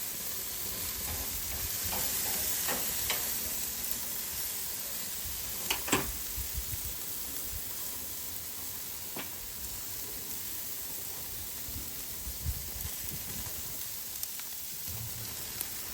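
Steak and chicken sizzling steadily on a grill as barbecue sauce goes onto the hot meat, with a few light clicks and knocks about 3, 6 and 9 seconds in.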